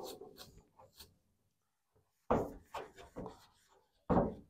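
Rag wiping over a sanded steering wheel rim with rubbing alcohol to clear the sanding dust, with light knocks as the wheel is handled and shifts on the car's hood. The sound breaks off for about a second in the middle, then starts again abruptly twice.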